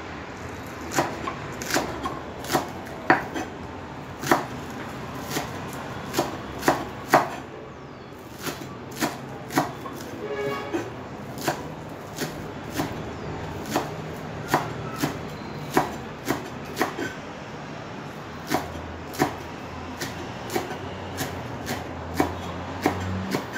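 Kitchen knife chopping green onions on a wooden cutting board: irregular sharp knocks of the blade on the board, about one or two a second.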